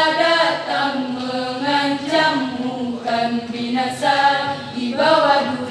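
Women's choir singing a cappella in harmony, in long held phrases with short breaths between them.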